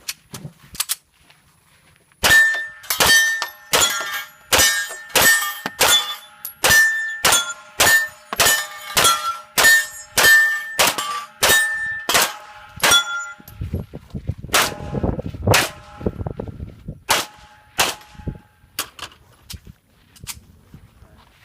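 Pistol shots fired in quick succession at steel targets, each hit ringing the steel plate with a clang. About twenty shots come over ten seconds starting about two seconds in, then fewer and more spread-out shots follow.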